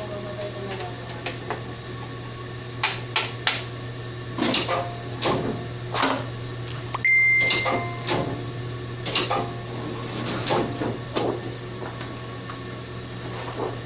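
Metallic clanks and knocks from the plate and roller section of a Heidelberg offset press as it is handled, over a steady low hum. A short high beep sounds about halfway through.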